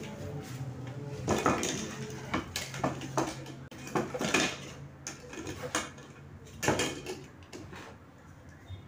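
Hard plastic car speakers and their plastic grille covers being handled and fitted together: irregular clacks, clicks and knocks of plastic against plastic.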